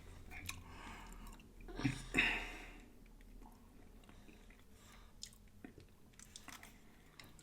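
Close-miked chewing and mouth sounds of someone eating a French fry, with a short louder noisy sound about two seconds in and soft clicks afterwards.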